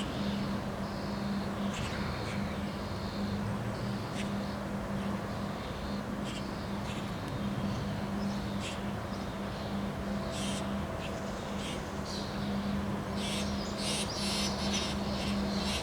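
Wind rushing over the microphone, with birds chirping and calling, the calls coming thicker near the end, over a steady low hum.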